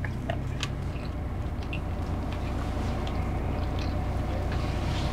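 Steady low hum inside a car cabin, with small scattered clicks of someone chewing a mouthful of food.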